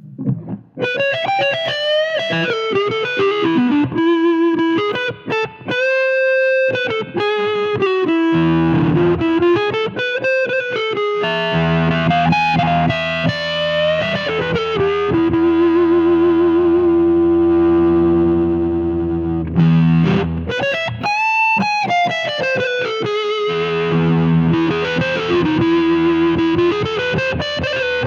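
Electric guitar played through a Cardian Effector C6H8O6 'Vitamin C' fuzz pedal: a fuzzy lead line with string bends and a long held note with vibrato in the middle, over low sustained chords.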